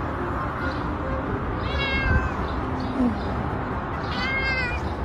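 Domestic cat meowing twice: two short, high meows, the first about two seconds in and the second about four seconds in, each falling slightly in pitch.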